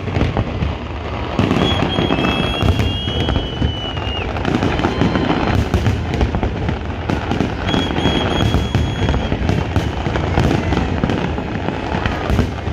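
Fireworks grand finale: a dense, continuous barrage of booms and crackling bursts. A high steady whistle sounds for about two seconds, twice.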